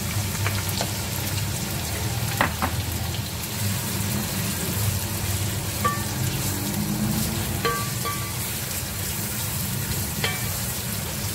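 Sliced onions frying in hot oil in a large aluminium pot, a steady sizzle as they are stirred with a wooden spoon. A few sharp knocks come where the spoon hits the side of the pot.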